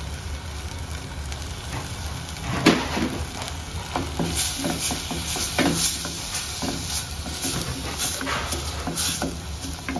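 An onion-and-spice masala base sizzling in a pan, stirred with a utensil that knocks and scrapes against the pan at irregular moments from a couple of seconds in, over a steady low hum.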